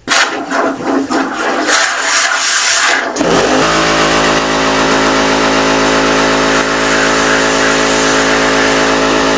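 Compressed air blasting through a toilet-cleaning attachment into the water of a toilet bowl in irregular spurts for about three seconds. Then an air compressor's motor starts and runs steadily with a hum under the hiss of the air.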